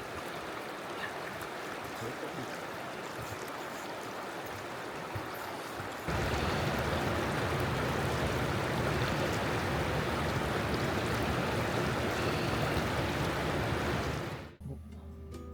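River water rushing steadily. It gets louder and fuller at a cut about six seconds in, and stops near the end as guitar music starts.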